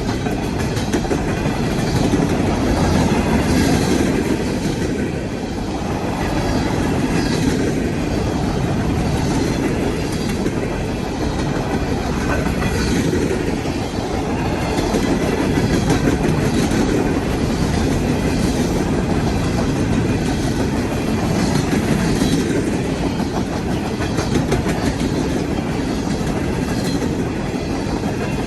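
Cars of a Norfolk Southern coal train rolling past in a steady rumble, with wheels clicking over the rail joints.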